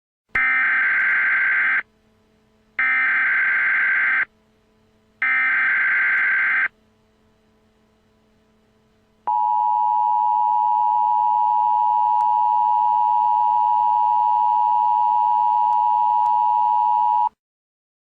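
Emergency Alert System tones: three short bursts of digital SAME header data, then the two-tone attention signal, a steady dual tone held for about eight seconds. Together they announce an emergency alert, here a tornado warning.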